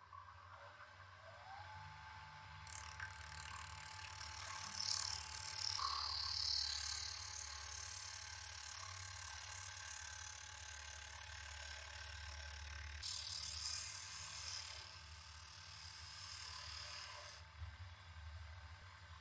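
Benchtop wood lathe spinning up, its motor whine rising in pitch about a second in and then holding steady. Sandpaper pressed against the spinning wooden handle makes a hissing rasp that comes and goes, with a break about two-thirds of the way through.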